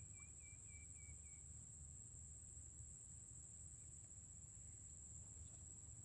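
Faint, steady, high-pitched insect trill, with a short run of about seven quick chirps in the first second and a half and a low hum underneath.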